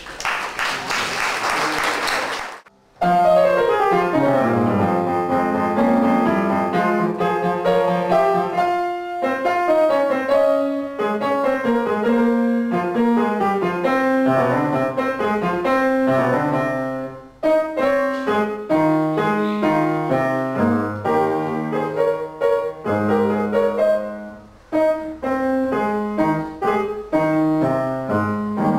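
About two seconds of applause, then a grand piano played solo by a child, starting about three seconds in with a run of notes falling in pitch and going on as a piece of many quick notes.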